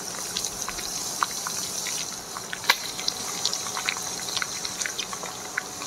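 Chicken frying in hot oil in a karahi, sizzling steadily with scattered pops and crackles.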